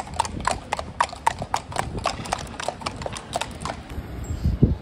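Hooves of several ridden horses walking on a tarmac road: an uneven clip-clop of about five hoofbeats a second that stops shortly before the end. A low thump near the end.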